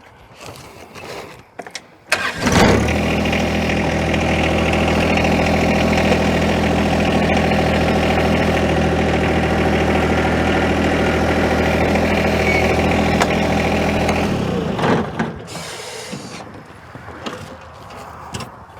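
John Deere 1025R compact tractor's small diesel engine starting about two seconds in and then running steadily at idle, before falling away about four seconds before the end.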